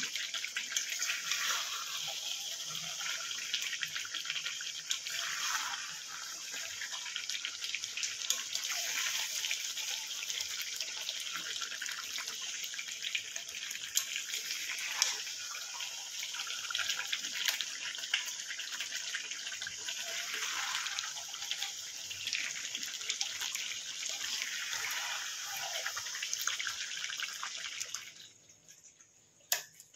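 Mutton frying in oil and spices in a pan for kosha: a steady sizzle with fine crackles. It drops away near the end, followed by a single sharp click.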